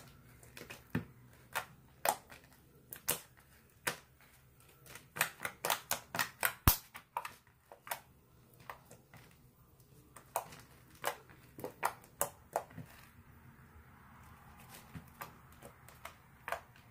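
Clear-glue slime being pressed and kneaded by hand on a plastic sheet, giving irregular sharp clicks and pops, with a quick run of them about five to seven seconds in.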